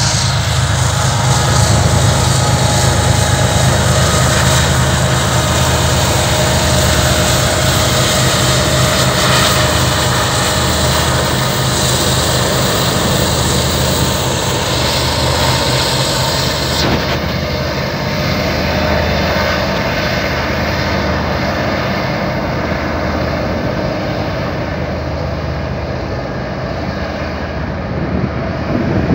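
Canadian Pacific GE ES44AC and EMD SD70ACu diesel-electric locomotives passing at work, a loud deep engine drone with a slow throb. About two-thirds of the way through the highest hiss drops away, and the freight cars rolling over the rails follow.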